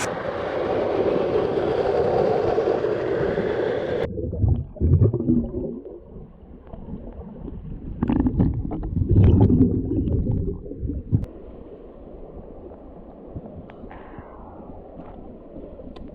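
Rushing water of a waterfall pool, then about four seconds in the sound turns suddenly muffled as the microphone goes underwater: low rumbling and gurgling of moving water, with louder swells twice.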